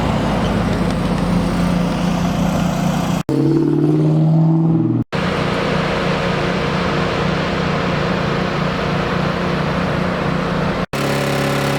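Car engines running in several short, edited-together takes, each breaking off abruptly. In the short take about a third of the way in, the engine pitch rises and falls as it is revved.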